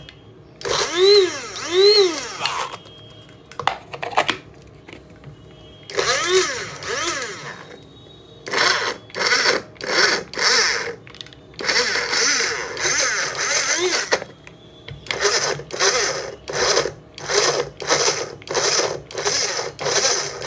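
Mini electric spice grinder (200 W, stainless steel, push-button) loaded with tomato pieces, pulsed on and off over and over; its motor whirs up and drops back in pitch with each press. Two short bursts come first, then a long run of quick pulses.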